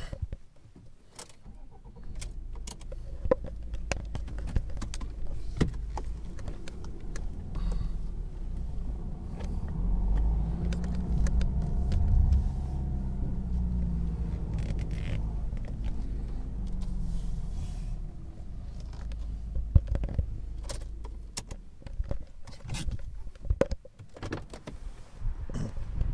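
A motor vehicle running close by on the street, its low rumble building to a peak and then fading away over about twenty seconds, with scattered sharp clicks and knocks throughout.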